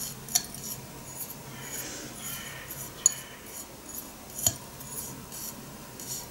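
Light handling sounds of a small ceramic dish: three sharp little clicks, one under a second in, one about three seconds in and one about four and a half seconds in, among fainter ticks.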